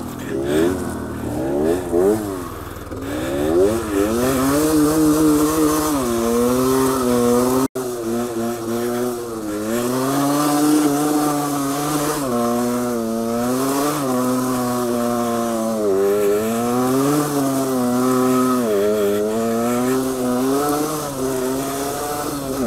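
Small motorcycle engine revving up and down again and again while riding off-road. The sound drops out for a moment about eight seconds in.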